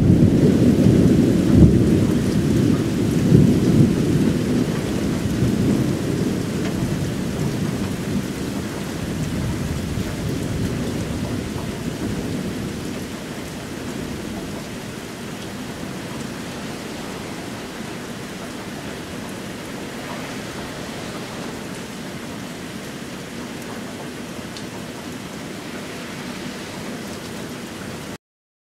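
Thunder rolling and slowly dying away over roughly the first ten seconds, over steady rain; the rain then carries on alone until the sound cuts off just before the end.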